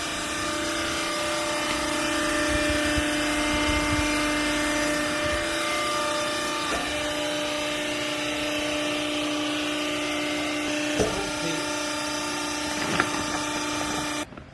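Wiper rag baler machine running with a steady mechanical whine and hum, a couple of knocks in the last few seconds, then cutting off abruptly just before the end.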